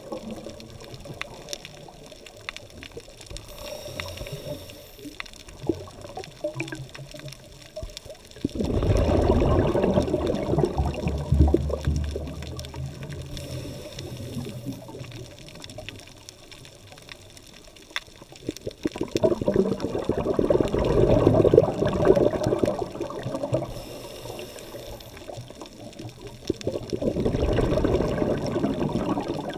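Underwater breathing of a scuba diver: three bursts of exhaled bubbles from the regulator, each lasting a few seconds and spaced about ten seconds apart. A faint high hiss comes between them.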